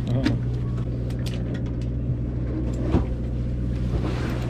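Fishing boat's engine running steadily with a low hum, with a sharp click about three seconds in.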